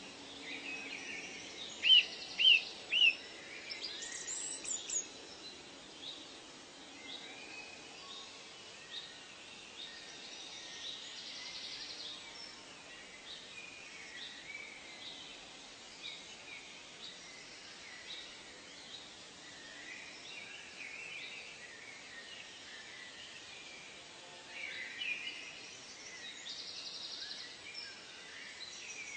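Many birds calling and chirping over a steady background hiss, with three loud, sharp chirps in quick succession about two seconds in and another burst of calls near the end.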